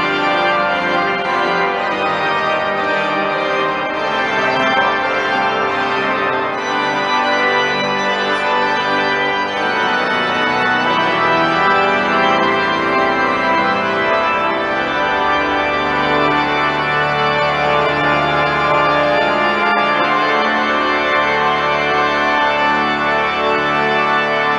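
Cathedral pipe organ playing a sustained chordal passage, with a deep held bass note coming in about two-thirds of the way through.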